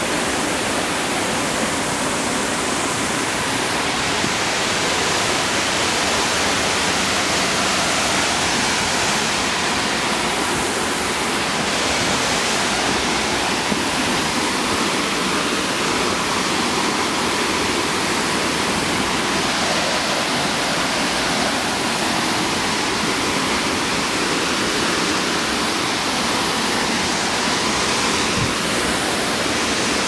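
Potem Falls, a waterfall: a steady, loud, even rush of falling water.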